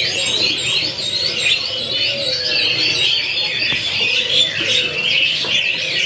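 Several caged domestic canaries singing at once: a dense, unbroken chorus of fast high trills and warbles.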